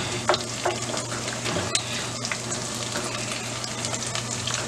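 Saucepan of rice in boiling water bubbling and hissing steadily, with small scattered ticks as a wooden spoon stirs the rice around the pan.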